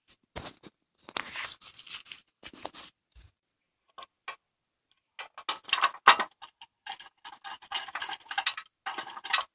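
Ratchet wrench clicking in bursts as transmission bolts are run in and tightened, with scraping and clinking of the socket against metal. There are scattered clicks at first, then two longer runs of rapid clicking in the second half.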